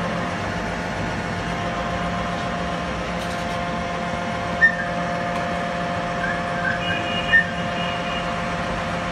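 Steady machine hum with several held tones, a motor running evenly; a few short high chirps come about halfway through and again near the end.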